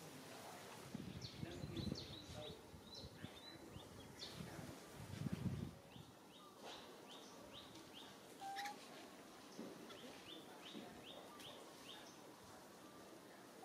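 Faint bird chirping in runs of short, quick high notes. There are two dull low rumbles in the first half.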